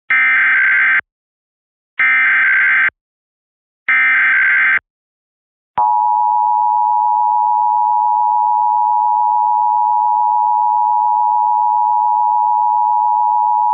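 Emergency Alert System header: three one-second bursts of SAME digital data tones, about a second apart. About six seconds in, the steady two-tone EAS attention signal (853 and 960 Hz) starts, opening the statewide Required Monthly Test.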